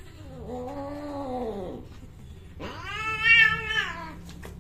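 Persian cats caterwauling while mating: one low, drawn-out yowl that rises and falls, then a louder, higher yowl about two and a half seconds in.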